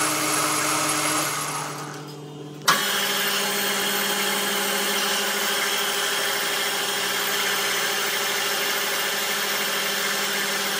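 Metal lathe running, a steady motor and spindle hum with a hiss of cutting, while the sharp inner edge of a freshly cut barrel-liner tube is chamfered. The sound dies away about two seconds in and comes back abruptly with a click a moment later.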